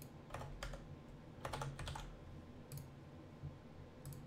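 Computer keyboard typing, quick keystrokes in a few short bursts over a faint low steady hum.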